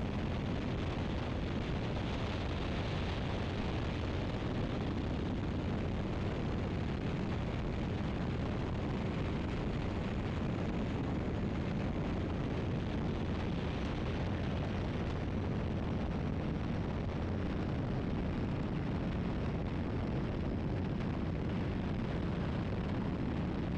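Biplane in level cruise flight heard from its cockpit: a steady drone of engine and rushing wind.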